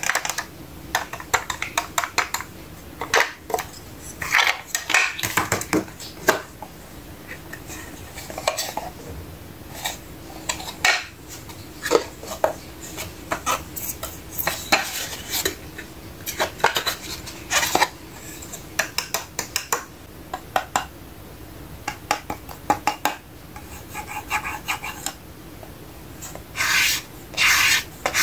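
Hard plastic toy pieces clicking, tapping and clattering as a small plastic toy shop display case and its pieces are handled and set down: many irregular sharp clicks, some in quick runs.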